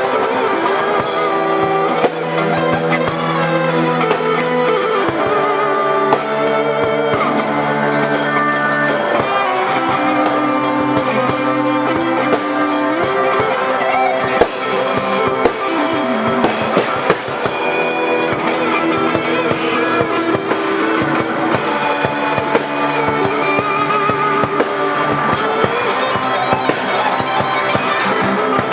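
Instrumental music played on guitars with a drum kit, with bending lead notes over steady drumming.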